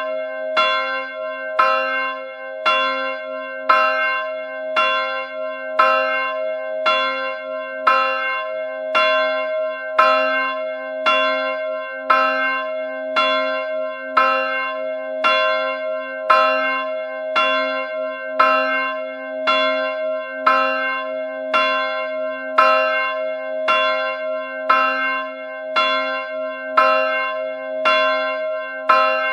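A church bell tolling steadily, struck about once a second, its hum and ring carrying on unbroken between strokes.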